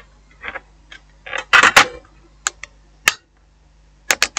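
Small sharp clicks and short scraping rattles from a phone's plastic mid-frame and small screws being handled and fitted. The loudest is a scrape of about half a second around a second and a half in.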